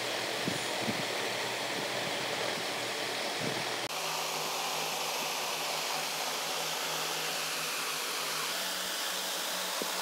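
Steady whooshing background noise like a running electric fan, with a few faint knocks in the first few seconds; about four seconds in it switches to a slightly different steady hum.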